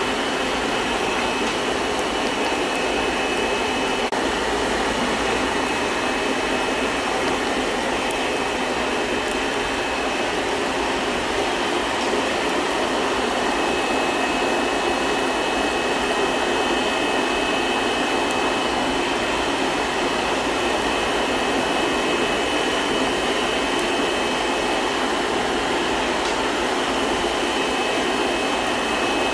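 Coal forge running with its air blower on: a steady rush of air and fire with a faint high whine that comes and goes, while a blade heats in the coals.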